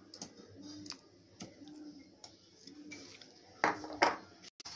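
Pieces of marinated chicken dropped one at a time into a plastic bowl of breadcrumb coating, making light soft taps, with two louder ones close together near the end. A faint regular ticking runs underneath, about once a second.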